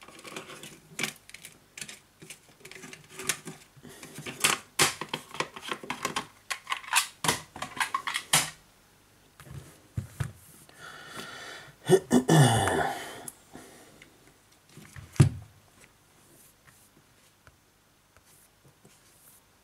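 Quick, irregular clicks and taps of hands handling a Sony Xperia Z2 Tablet's glass screen and frame, dense for about eight seconds. About eleven seconds in comes a short pitched sound with a falling low part, then one knock near fifteen seconds.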